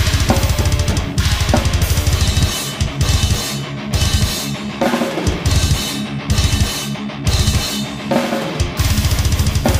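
Acoustic drum kit played hard and fast: very rapid bass drum strokes under snare hits and crashing cymbals. The bass drum run breaks into shorter bursts about two and a half seconds in, then goes back to a steady fast run near the end.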